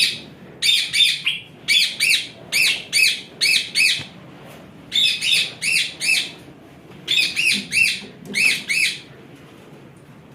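Parrot screeching over and over, sharp shrill calls in quick runs of two to five with short pauses between the runs, stopping about a second before the end.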